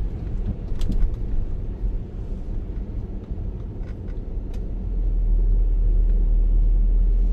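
Car interior road noise while driving: a steady low rumble from engine and tyres, with a few faint clicks, growing louder from about five seconds in.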